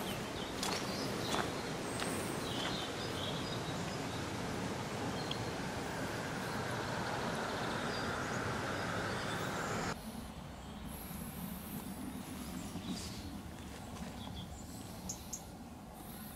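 Steady rushing of a small stream's running water. About ten seconds in it cuts off to a quieter outdoor hush with a few short bird chirps.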